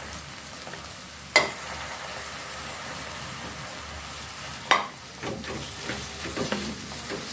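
Onions, tomato, garlic and ginger sizzling in hot oil in a metal wok, a steady frying hiss. There are two sharp knocks, a little over a second in and near five seconds, and then a wooden spatula scrapes and stirs the mix through the pan.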